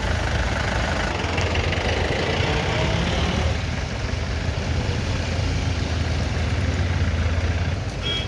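A vehicle engine running steadily: a constant low hum under a noisy rush, which eases slightly near the end.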